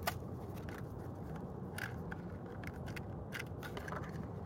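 Hot Wheels blister pack and cardboard backing being handled and opened by hand: a few short plastic crackles and clicks, a sharp one at the start and others about two and three and a half seconds in, over steady low background noise.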